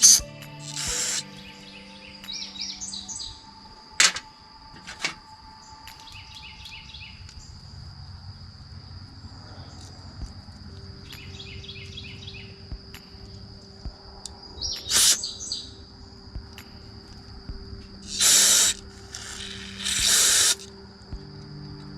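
Birds chirping in short runs of quickly repeated notes over a steady high tone. Several short loud hissing bursts and a few sharp clicks break in.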